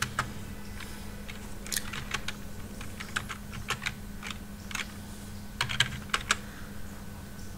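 Computer keyboard being typed on: a dozen or so separate key clicks at an uneven pace, in small clusters, over a faint steady hum.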